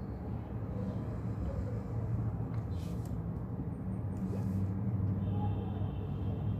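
Steady brown noise, an even low hiss, with a couple of faint keyboard taps about three and four seconds in.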